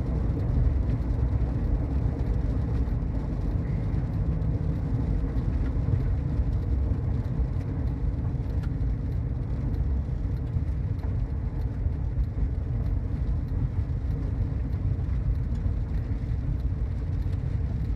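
Steady road and engine rumble heard from inside a moving car, with scattered faint ticks of rain hitting the car.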